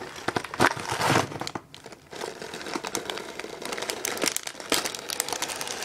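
Clear plastic bags of LEGO bricks crinkling and rustling, with light clicks, as they are handled inside an opened cardboard set box. There is a brief lull a little under two seconds in.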